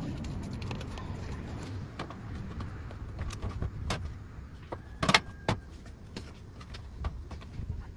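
Scattered clicks and knocks of objects being handled, over a low steady rumble, with the loudest knock about five seconds in.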